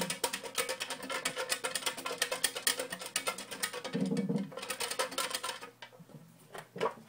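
Folded paper name slips being shaken and rattled inside a box to mix them before a draw: a rapid, continuous rattle that stops about six seconds in, followed by a couple of light knocks.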